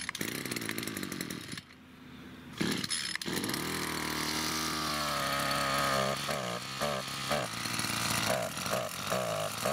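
Brand-new Oleo-Mac brushcutter's small petrol engine on its first cold start, running on choke. It fades out briefly about one and a half seconds in, catches again about a second later and runs on unevenly: the engine is still cold and raw and needs the choke.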